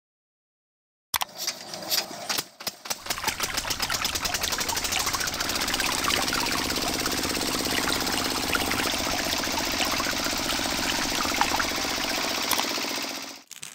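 A small electric motor running with a fast ticking buzz. It starts about a second in, settles into a steady hum, and cuts off near the end.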